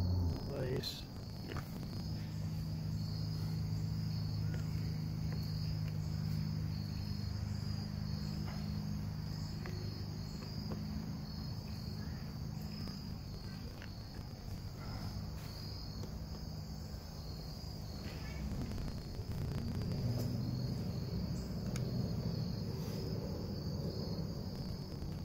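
Insects chirring in a steady, pulsing high chorus over a steady low hum, with a few faint clicks.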